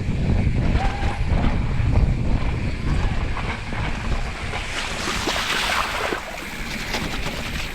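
Wind buffeting the microphone of a camera on a mountain bike riding fast down a dirt trail, a heavy low rumble, with a louder hiss about five seconds in.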